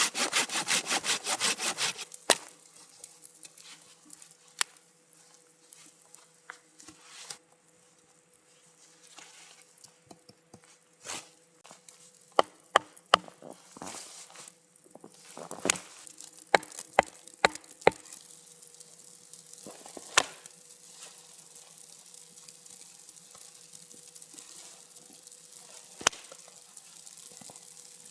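Wood being sawn by hand with rapid, even strokes that stop about two seconds in. Then come scattered sharp knocks and clicks of gear being handled.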